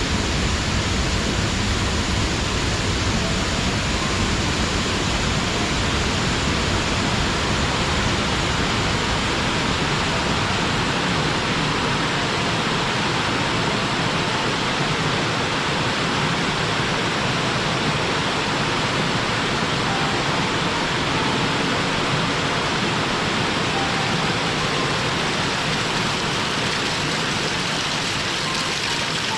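Mountain waterfall pouring steadily: a dense, even rush of falling water.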